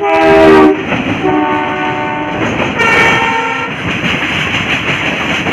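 Indian Railways train horn sounding three times, the first blast the loudest, over the steady rumble and clatter of the coaches running on the rails, heard through an open coach door.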